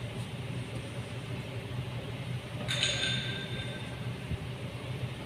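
Mitsubishi Pajero engine idling steadily, with a single metallic clink about two and a half seconds in that rings briefly.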